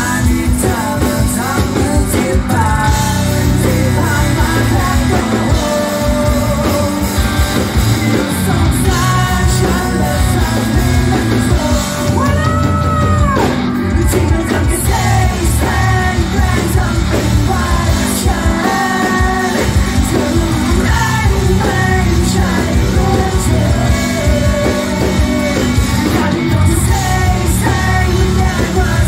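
Live rock band playing a song: a male singer over electric guitars, bass guitar and drums, loud and steady throughout.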